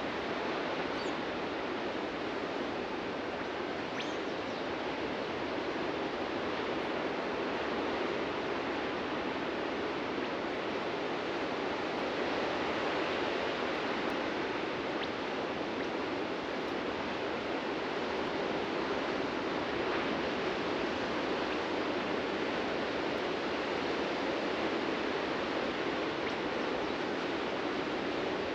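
Ocean surf breaking on a beach: a steady rushing wash of waves with slow, gentle swells in level.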